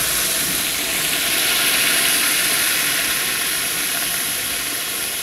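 Water poured into a pot of hot oil with frying moong dal and spices, hissing and sizzling steadily as it hits the hot oil, peaking about two seconds in and easing slightly toward the end.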